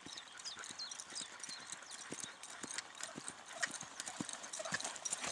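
Horse's hooves striking a sand arena surface under a rider, a steady rhythm of thuds that grows louder as the horse comes closer.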